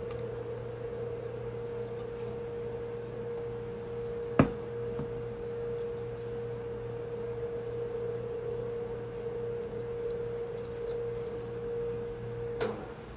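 A steady single-pitched hum, held for about twelve seconds and cutting off suddenly near the end, with one sharp click about four seconds in.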